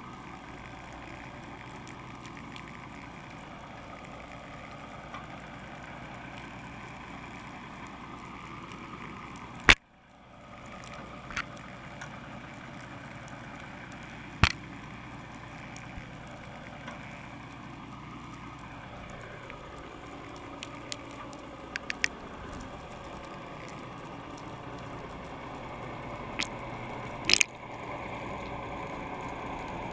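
Steady engine and water noise on a fishing boat, broken by a few sharp knocks: a loud one about ten seconds in, another a few seconds later, and a double knock near the end.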